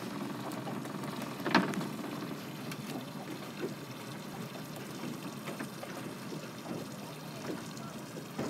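Choppy lake water lapping and splashing in small irregular slaps, with one sharp knock about one and a half seconds in.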